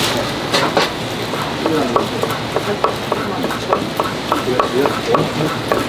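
Kitchen knife slicing sundae (Korean blood sausage) into rounds on a wooden cutting board: a quick, even series of blade taps on the board, about three to four a second, starting about two seconds in.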